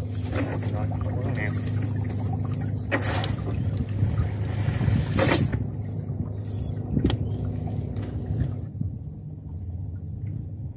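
A small boat's engine idling steadily while a cast net is hauled up out of the river, water pouring and dripping off the mesh, with a few sharp splashes or knocks about three, five and seven seconds in.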